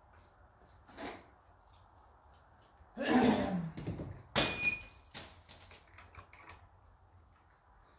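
Metal tools and parts handled while the front of a tractor is taken apart. About three seconds in there is a short rattling scrape, then a sharp metallic clank that rings briefly, followed by a few light clicks.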